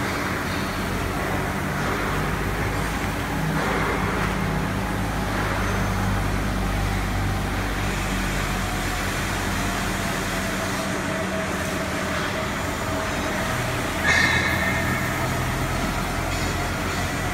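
Steady workshop machinery noise: a continuous rumble with a low electrical-sounding hum, and a brief louder, higher-pitched sound about fourteen seconds in.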